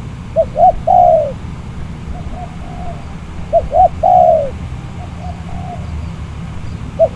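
Spotted dove (tekukur) cooing: two loud phrases, each two short notes followed by a longer falling coo, about three seconds apart, with a third beginning at the very end and fainter coos between them. A steady low rumble of wind on the microphone lies under the calls.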